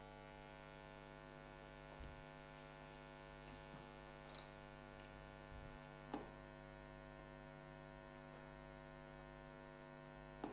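Near silence: a steady electrical mains hum, with a few faint clicks.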